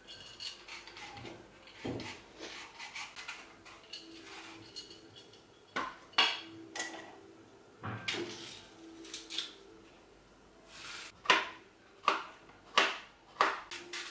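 Dishes and cutlery clattering: irregular clinks and knocks, with a few louder clacks near the end.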